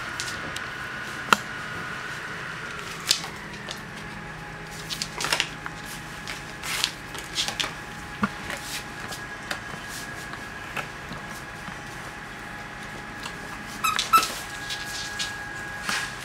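A dachshund chewing and mouthing a frisbee toy, with irregular clicks, knocks and scrapes as the toy moves on a wooden floor, and a quick run of sharp ticks near the end.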